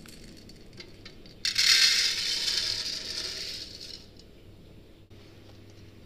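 Raw coffee beans poured from a steel bowl into a bread maker's baking pan: a rush of rattling that starts suddenly about a second and a half in and tapers off over the next two seconds or so.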